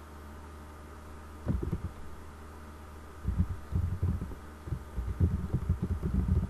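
Computer keyboard typing picked up as quick, dull, low thuds: a short burst about a second and a half in, then a longer run from about three seconds on, over a steady low electrical hum.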